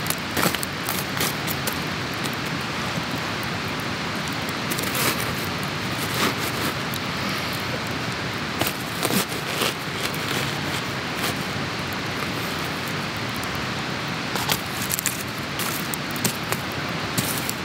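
Campfire crackling: irregular sharp pops and snaps over a steady hiss.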